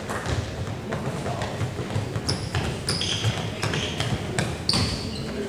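Basketball court sounds: sneakers squeaking briefly on the hardwood gym floor several times, mostly in the second half, over low thuds of a basketball bouncing.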